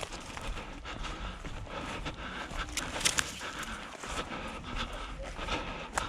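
A person breathing hard while moving on foot, with footsteps and a few sharp clicks or knocks, the loudest about three seconds in and near the end.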